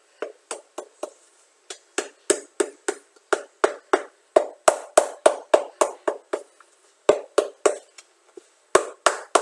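Shoemaker's hammer striking a cup sole on a shoe, quick blows about three a second, pressing the glued sole down onto the upper. A short lull comes about seven and a half seconds in before the blows resume.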